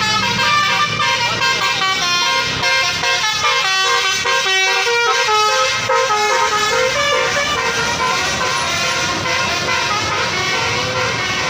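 Bus 'telolet basuri' melodic horn playing a tune of short notes that step up and down, over the bus's running engine.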